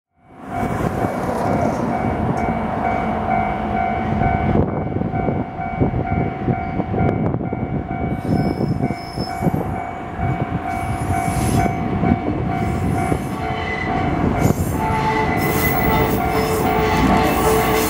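Diesel shunting locomotive DD603 approaching at low speed with a train of tank wagons: a steady engine and rail rumble with high-pitched, drawn-out wheel squeals, which change pitch and grow louder near the end as the locomotive draws close.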